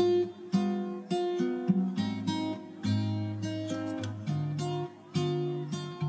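Background music: an acoustic guitar playing chords, each one struck and left to ring out and fade.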